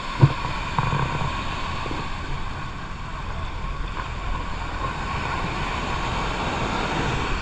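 Wind buffeting the microphone over the steady wash of sea waves, with one dull knock about a quarter of a second in.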